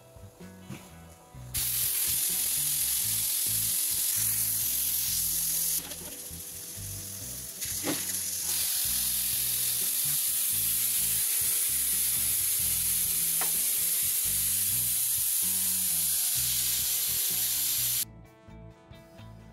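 Food frying in hot oil in a pan: a loud, steady sizzle that starts suddenly a second and a half in, eases for about two seconds midway and cuts off near the end. Two clicks come through it, typical of a spoon stirring in the pan.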